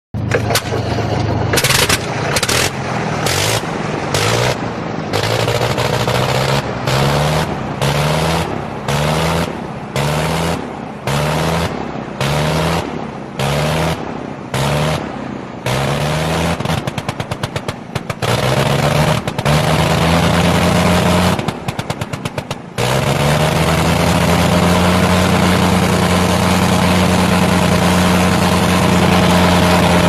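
Sopwith Camel's nine-cylinder rotary engine running just after being hand-propped. It surges and drops in regular pulses about once a second, then stutters rapidly for several seconds, and from about three-quarters of the way in it runs at a steady even speed.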